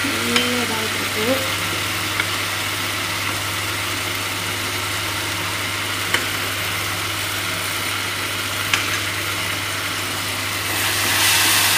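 Chopped tomatoes and onions sizzling in a steel kadai over a steady low hum, with a few light clinks of a steel ladle against a pan. The sizzling grows louder near the end.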